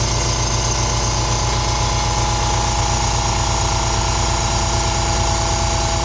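Vacuum lamination machine for phone screens running through its laminating cycle: a loud, steady, rapidly pulsing hum with a steady higher tone over it.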